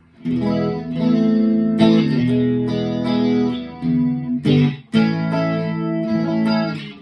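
Clean electric guitar chords played through a TC Electronic 3rd Dimension chorus pedal, four or five chords struck one after another and each left to ring out.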